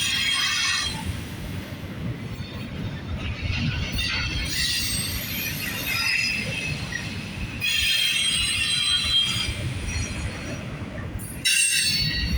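Double-stack container freight train rolling past: a steady low rumble of the cars, with high-pitched wheel squeal coming and going in several stretches.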